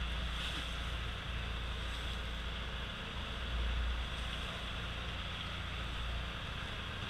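Motor fishing boat's engine running steadily: an even low rumble with a hiss above it.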